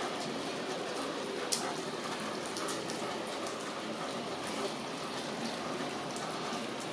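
Steady rain falling, with single drops ticking sharply on nearby surfaces; one sharper tick comes about a second and a half in.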